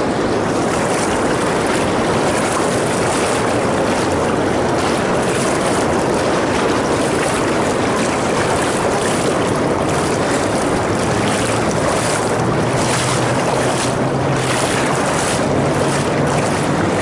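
Steady rush of river water pouring over a low-head dam, with short splashes coming more often in the second half.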